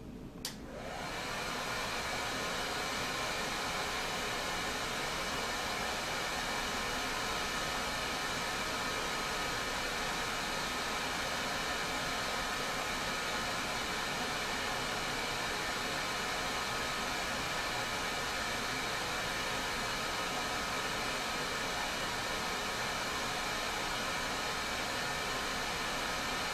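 Hair dryer switched on with a click, building up within about a second and a half, then running steadily: an even blowing hiss with a thin, steady motor whine through it.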